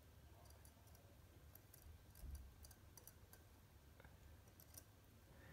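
Near silence with faint, scattered tiny clicks of tweezers touching the parts of a Sellita SW210 mechanical watch movement.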